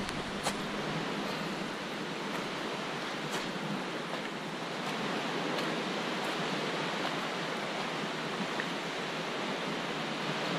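Steady rush of sea waves washing against the shore, with a few faint clicks.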